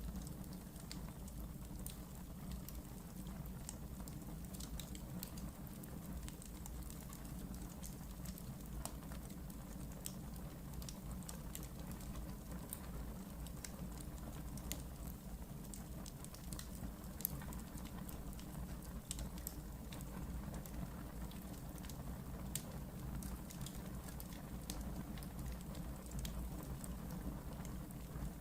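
Wood fire burning in a fireplace, crackling with a constant scatter of small sharp pops over a steady low rumble of the flames.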